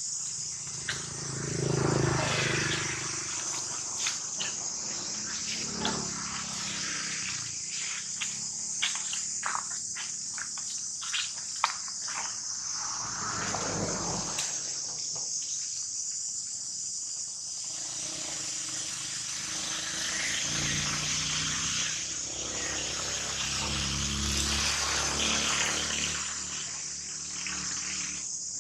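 Steady, high-pitched drone of a chorus of insects, with scattered crackles of dry leaves and a few low rumbles, the loudest about two seconds in and again near the end.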